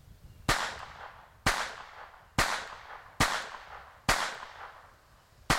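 Colt 1908 Vest Pocket pistol firing .25 ACP: six shots, roughly a second apart, the last near the end. Each shot is followed by a short echo.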